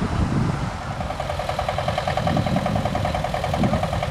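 Engine of a small vintage tractor running as it drives past, a rapid, even beat coming in about a second in, with wind buffeting the microphone.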